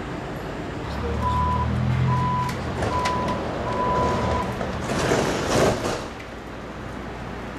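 Door-closing warning on an Athens ISAP Line 1 metro car: four beeps, the last one longer, over a low hum, then the sliding doors shut with a burst of noise.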